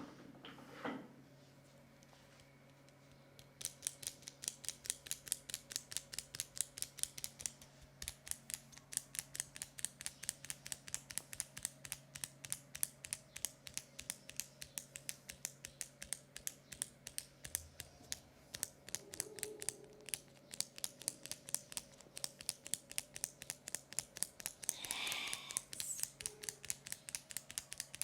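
Scissors snipping in a quick, steady rhythm, about three sharp snips a second, starting a few seconds in. A brief rustle is heard near the end.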